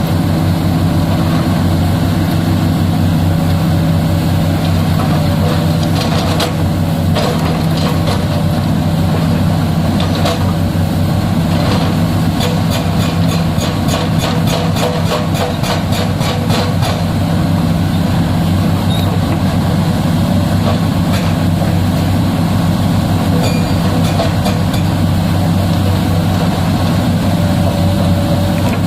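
Tata Hitachi excavator's diesel engine running steadily. A quick series of clicks and knocks comes over it about a third of the way in and stops about halfway through.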